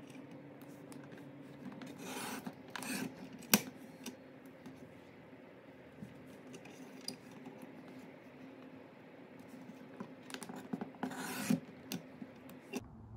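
Sliding paper trimmer: the blade carriage is run along the rail twice, about 2 s in and again about 10.5 s in, each time a rasping scrape of about a second as it slices through a printed sheet. A sharp click about 3.5 s in and lighter taps of paper and plastic come between the cuts.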